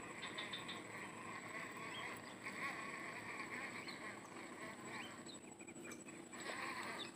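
A steady chorus of wild animal calls, with a few short higher calls about a quarter of a second in.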